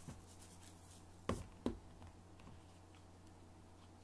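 Two sharp knocks about a third of a second apart as things are handled and set down on a kitchen counter while meat is being seasoned, over a steady low hum.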